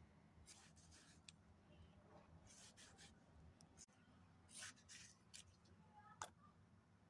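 Near silence: faint room tone with a few soft, scattered rustles and clicks.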